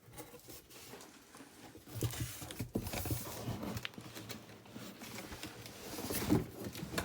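Rustling and scrabbling with small clicks and a few sharper knocks near the end: hands rummaging through a package and handling the items in it.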